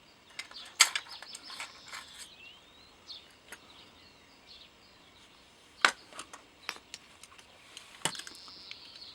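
Metal clicks and clacks of IMBEL rifle parts being handled while the gas system is stripped: the gas regulator, gas piston and return spring coming out. Three sharp louder clacks, about a second in and twice in the second half, among lighter ticks, with faint bird chirps behind.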